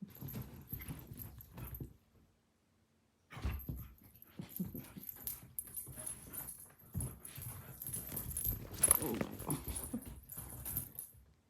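Two young dogs play-fighting: scuffling and thumps, with yips and a whine about nine seconds in, and their collar tags jingling. The play stops briefly about two seconds in, then starts again.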